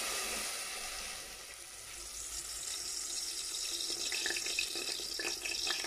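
Ball of sfenj yeast dough deep-frying in hot oil in a small stainless saucepan: a steady sizzle that turns crackly with many small pops after about two seconds. The dough was shaped with a water-wetted hand, which makes the oil spit.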